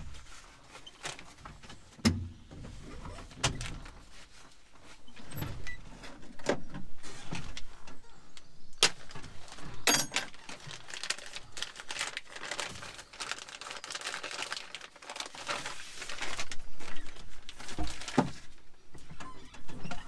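A new tractor throttle cable being unpacked by hand: plastic and paper packaging rustling, with scattered sharp clicks and knocks from the cable and its metal ends. The rustling is densest in the second half.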